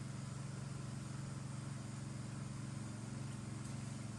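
A steady low mechanical hum, even in level throughout, with no other sound standing out.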